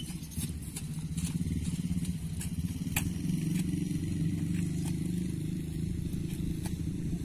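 An engine running steadily, growing louder over the first second or so, with a few faint clicks over it.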